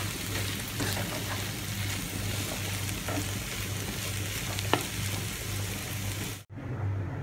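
Chopped ivy gourd and onion sizzling in oil in a pan as a wooden spatula stirs them, with small ticks and one sharp click about two-thirds of the way through. The sizzling cuts off abruptly near the end, leaving a steady low hum.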